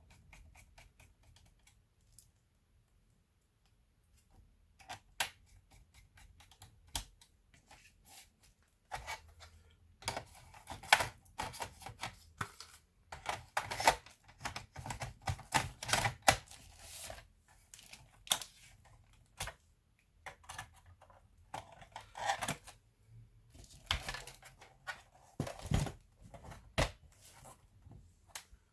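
Irregular sharp clicks and taps from hands working on an Asus X54C laptop. They are sparse at first, then come in dense flurries from about nine seconds in.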